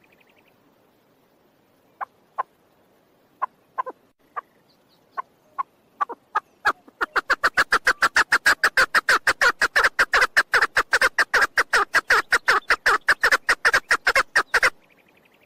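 Female chukar partridge calling: a few scattered sharp clucks, then from about seven seconds in a fast run of clucks, about six a second, that stops abruptly near the end.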